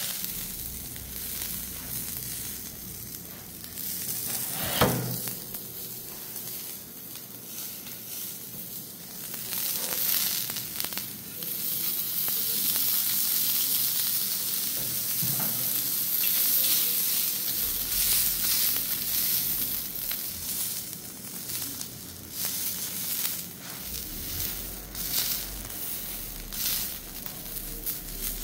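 Sausages sizzling on a hot ribbed grill pan. The sizzle swells louder for several seconds in the middle. There is a single sharp knock about five seconds in.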